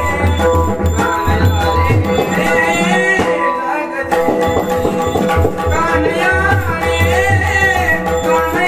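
Male voice singing a Marathi gavlan abhang, accompanied by a mridang whose deep bass strokes keep a steady rhythm under a held drone note. The drum pauses briefly about three seconds in, then comes back.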